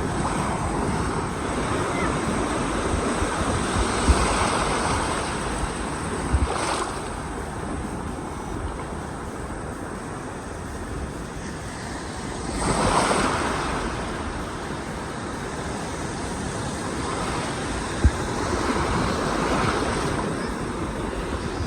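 Ocean surf washing in and out, swelling and easing, with one bigger wave surging about halfway through. Wind buffets the microphone with low rumbles and a few thumps.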